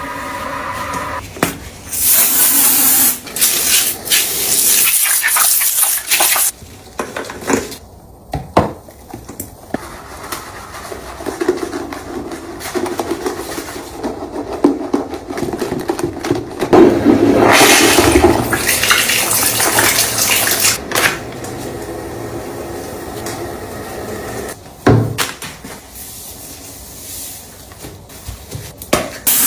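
Cleaning sounds with water: loud bursts of rushing water, the longest about four seconds near the middle, with clicks and knocks in between.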